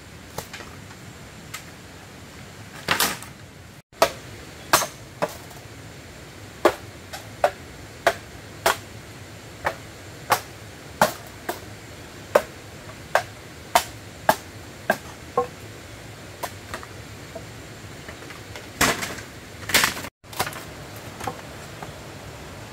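Machete chopping bamboo: a series of sharp, separate blows at about one or two a second. Two longer, noisier bursts come a few seconds in and near the end.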